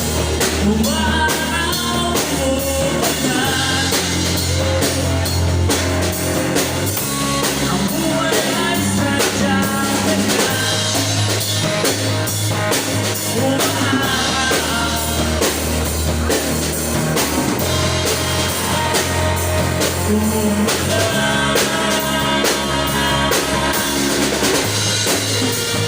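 Music: a band-style song with a drum kit keeping a steady beat, bass and guitar.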